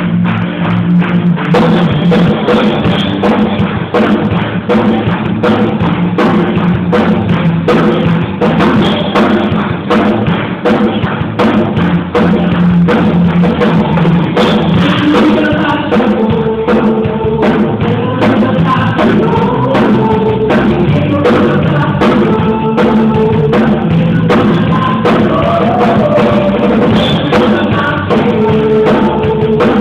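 Gospel worship music with a drum kit keeping a steady beat over a bass line; a melody that bends in pitch, like a singing voice, comes in about halfway through.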